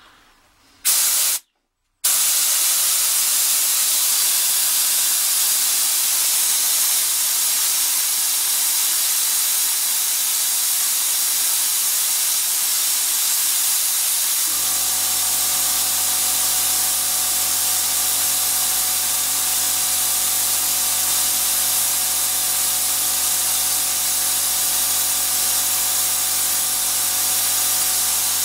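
Compressed air hissing loudly and steadily from the air line that tensions the lock, starting about two seconds in. About halfway through, the air compressor kicks in and runs with a steady low hum under the hiss.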